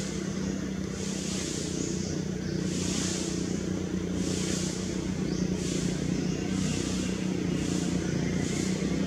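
Outdoor background: a steady low hum under a high hissing buzz that swells and fades about every one and a half seconds.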